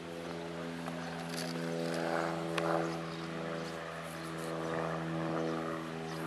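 A steady, even machine hum: one unchanging low tone with its overtones, with a few brief faint sounds over it.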